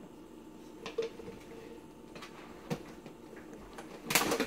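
A knife and mayonnaise jar being handled while mayonnaise is spread on sliced bread: a few faint taps and clicks, then a louder burst of scraping and knocking near the end.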